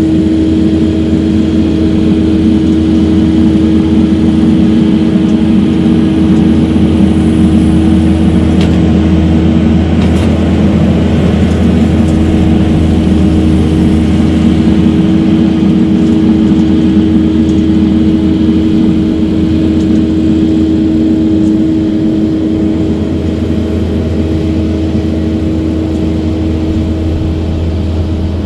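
Kubota skid steer's diesel engine running steadily under load, a loud even drone with a constant whine.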